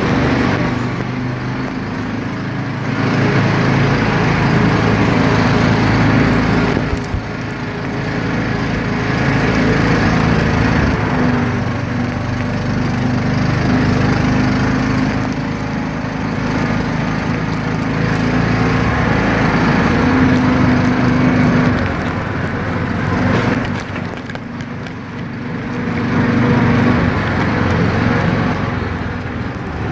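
Small engine of an off-road buggy running while it drives over a rough dirt trail, heard from the seat, its speed and loudness rising and falling every few seconds with the throttle.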